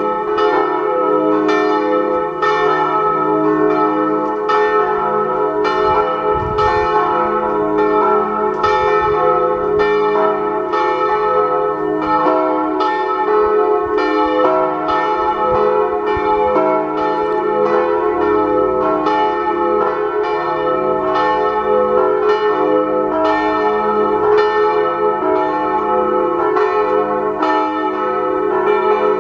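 Swinging church bells, cast or recast by G. Pruneri of Grosio in 1901, ringing a peal. Several bells sound together in a quick, steady run of strokes that overlap and keep ringing on.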